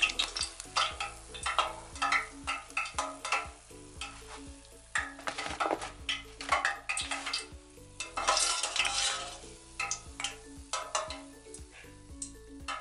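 Pineapple panikeke (Samoan doughnut balls) sizzling as they deep-fry in hot oil, with many sharp clinks and scrapes of a wire spider skimmer against the metal pot as the fried balls are scooped out.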